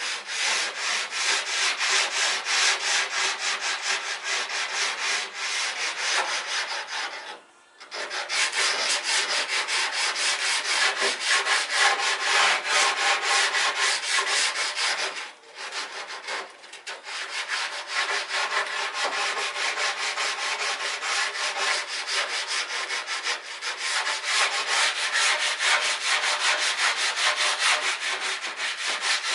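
Sandpaper rubbed by hand over wood in quick, even back-and-forth strokes, about four a second, smoothing corners to take off splinters. The strokes stop briefly about seven seconds in and dip twice around the middle.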